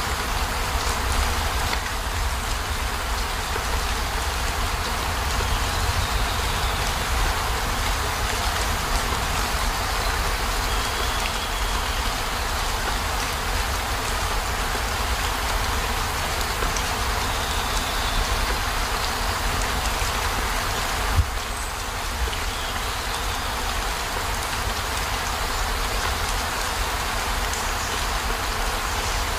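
Steady rain pattering on a van's roof and windows, heard from inside, with a deep low rumble beneath it. One brief thump about two-thirds of the way through.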